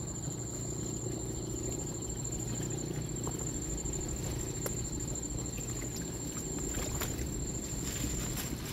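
Light rustling and scattered faint clicks as plastic sacks, buckets and live cá kèo (elongate mudskipper gobies) are handled. Underneath is a steady low rumble and a continuous high-pitched insect trill.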